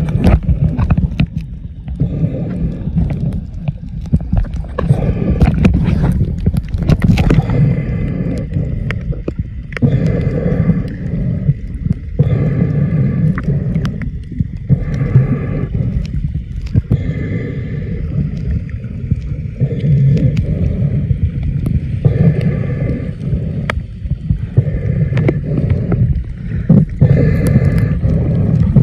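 Muffled water sloshing and gurgling around an underwater action camera. Breath-like sounds recur every second or two, typical of a snorkeler breathing through the snorkel, with scattered clicks and knocks.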